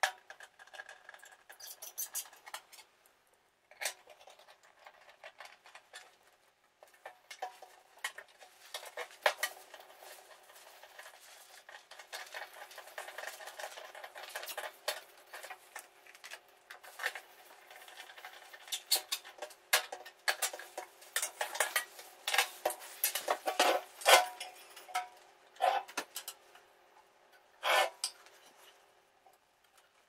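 Metal hand tools clinking and scraping against the furnace blower's sheet-metal housing and motor mount brackets while the motor is fastened in place. Irregular metallic taps and rattles, sparse at first and busier in the second half.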